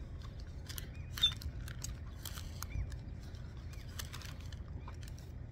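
Paper burger wrapper crinkling and rustling in short bursts as it is handled, loudest about a second in, with a few faint short bird calls over a low steady rumble.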